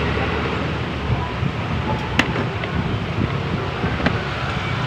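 Steady background noise with two sharp clicks, one a little over two seconds in and one about four seconds in.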